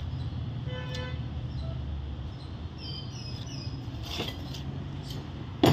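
Steady rumble of passing traffic with a short vehicle-horn toot about a second in. A single sharp knock near the end is the loudest sound.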